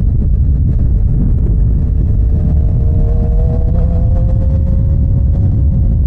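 Suzuki GSX-R sportbike riding at speed, heard as a heavy low rumble of wind on the microphone with the engine's note underneath. The engine note rises slightly around the middle, as the bike picks up speed, then holds steady.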